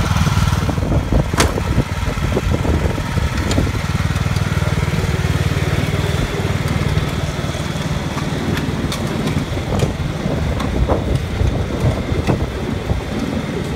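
Cub Cadet XT riding lawn tractor's engine running as the tractor drives away, with a few sharp clicks along the way.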